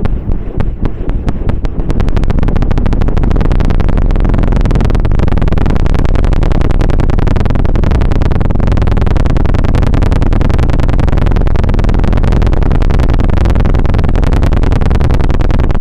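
Ear-scraping stick worked very fast against an ASMR microphone's ear in the 'helicopter' trigger: a rapid flutter of strokes that quickens over the first two seconds into an even whirring run, heavy in the low end.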